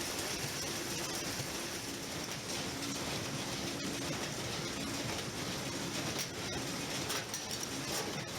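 Bale-processing machinery running steadily: a bale breaker tearing apart large hay bales and feeding a two-string baler, a continuous mechanical rattle with a low hum and a few sharp clicks.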